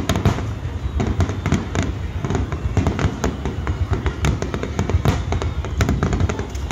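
Fireworks bursting in a rapid barrage: many bangs and crackles in quick succession over a steady low rumble.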